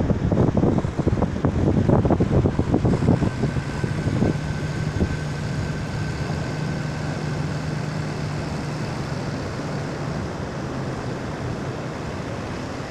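Wind buffeting the microphone for the first few seconds, then a boat-launching tractor's engine running with a steady drone that weakens near the end.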